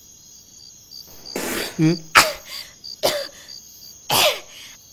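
A person coughing and gasping in four short, rough bursts, the first and longest about a second and a half in, over a faint steady chirping of crickets.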